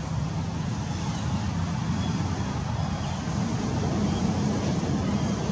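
Steady low outdoor rumble with a hiss over it, even throughout.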